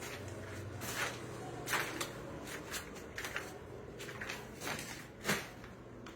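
Irregular shuffling and rustling with short scuffs, like someone moving about and handling things, the sharpest scuff about five seconds in.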